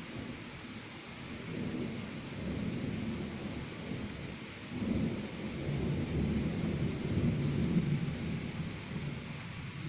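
Distant thunder rumbling from a passing thunderstorm. The rumble swells about halfway through, is loudest near the end and then eases, over a steady background hiss.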